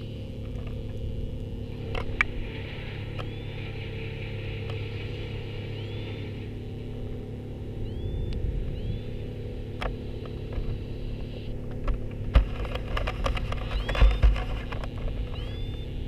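A steady low motor hum, with short high chirps recurring over it and a cluster of sharp knocks near the end.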